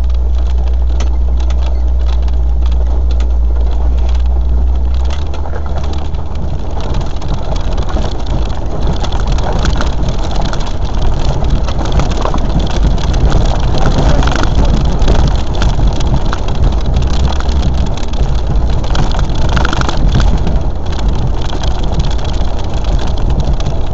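Land Rover on a four-wheel-drive run: a continuous low engine rumble, with many small knocks and rattles throughout. The low engine note changes about five seconds in.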